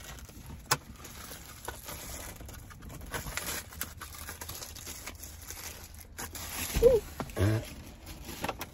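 Clear plastic packaging crinkling and rustling as a handheld car vacuum is unwrapped and handled, with scattered small clicks and two louder bumps about seven seconds in.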